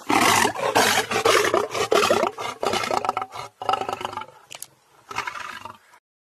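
Lion roaring: a loud, rough roar lasting about three seconds, then a few shorter, weaker grunts that tail off before the sound cuts off.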